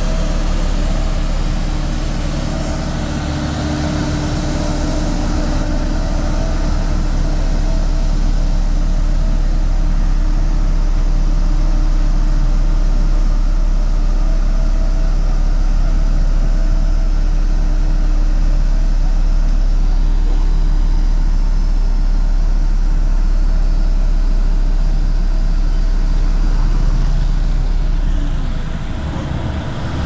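Diesel engine of a Hamm 3410 single-drum roller running steadily, a deep even rumble as the roller works loose soil; it eases off slightly near the end.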